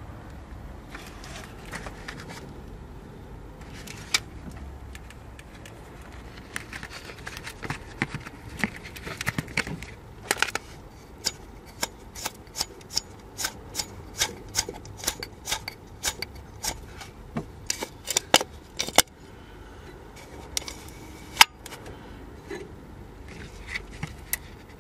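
Worn, dry clutch release (throwout) bearing on a front-wheel-drive gearbox's input shaft, rattling as it turns. A run of irregular sharp clicks, a few a second, starts about six seconds in and thins out near the end; the rough rattle is the sign of the bearing being worn out and dry.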